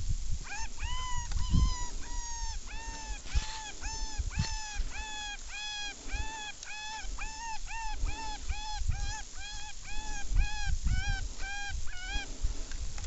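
Electronic predator call playing an animal distress sound: about two dozen identical high, arched cries repeated steadily about twice a second, which stop just before the end.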